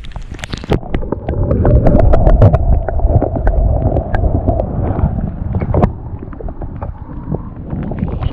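Muffled underwater rumble and sloshing of river water picked up by a partly submerged action camera, with many small clicks and knocks on the housing as a brown trout is held in the water for release. Loudest through the first half, easing off after about six seconds.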